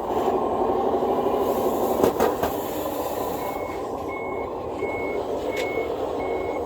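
Quarter-scale RC wheel loader working, its motor running steadily, with a brief clatter about two seconds in. From about halfway on, its reversing beeper sounds in short high beeps, about one and a half a second.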